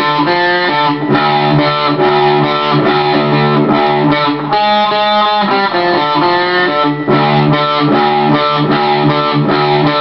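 Electric guitar in drop D tuning with distortion, playing a single-note rock lick slowly: held notes with a string bend, then an alternation between the open low D string and the fifth fret of the A string. The phrase breaks off briefly and starts again a few times.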